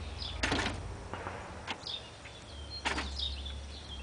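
Small birds chirping in the background, with two short knocks about half a second and three seconds in over a low steady hum.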